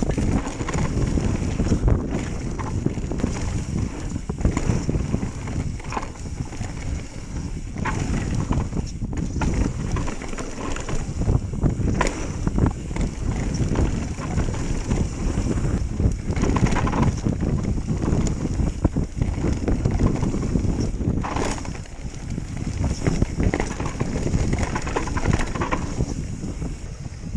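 Mountain bike descending a dirt trail: wind buffeting the camera's microphone, knobby tyres rolling over dirt and the bike rattling over bumps, with sharp knocks throughout.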